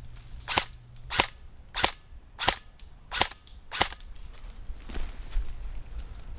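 Airsoft gun firing single shots in a steady rhythm, six sharp snaps about two-thirds of a second apart, followed by a few fainter shots near the end.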